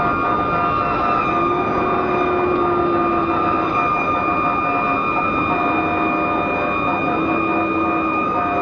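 Fire engine's siren sounding a steady high tone over the truck's engine and road rumble, heard from inside the cab while responding.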